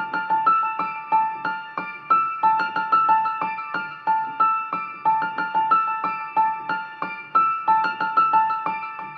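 Background music: a light keyboard melody of short, quickly fading notes played at an even pace.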